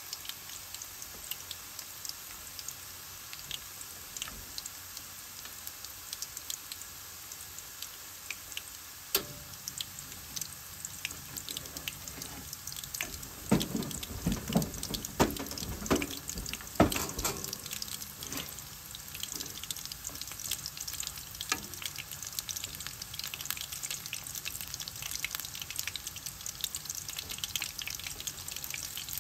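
Flour-battered shrimp deep-frying in hot oil: a steady sizzle with constant small crackles. It gets louder for a few seconds around the middle, with several sharp pops.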